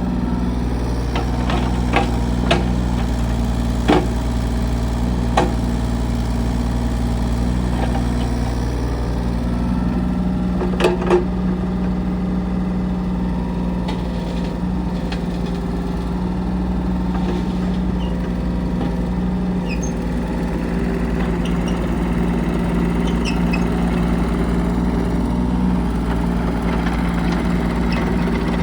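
Kubota U35-4 mini excavator's diesel engine running steadily, with a handful of sharp knocks from the machine over the first dozen seconds.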